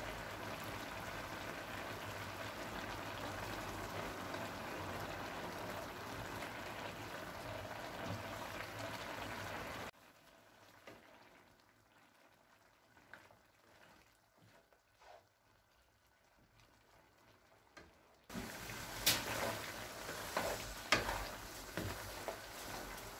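Mutton curry bubbling hard in a karahi pan on high flame, a steady hiss of boiling and frying as the water cooks off. About ten seconds in it drops to near silence with a few faint clicks, and the bubbling comes back near the end with spoon scrapes and knocks against the pan as butter is stirred in.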